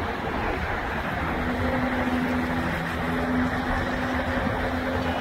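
Steady rushing outdoor noise with a low rumble, joined about a second and a half in by a low, even motor hum.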